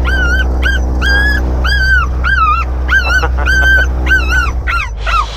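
A stressed puppy whining in a run of high-pitched cries, about two or three a second, some dropping in pitch at the end. Under it runs the low steady hum of the Grumman Tiger's engine.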